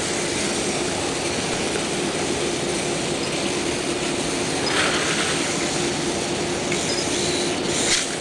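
Two Parallax SumoBot robots' continuous-rotation drive servos whirring steadily as the robots drive and push against each other, with a brief louder burst of noise about five seconds in.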